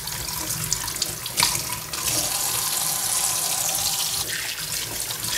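Kitchen tap running steadily into a sink while sliced raw chicken breast is rinsed by hand under the stream, with splashing and a few light knocks.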